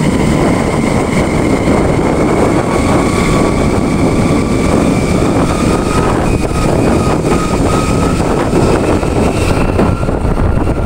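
Motorcycle engine running loudly and steadily, its pitch shifting slightly about six seconds in.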